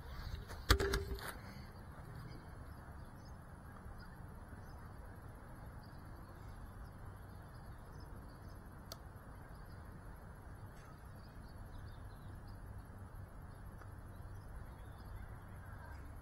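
FPV quadcopter hitting the ground about a second in: a short, sharp clatter. Then the landed quad's camera picks up only faint outdoor ambience: a low steady rumble, a thin high whine, and faint bird chirps.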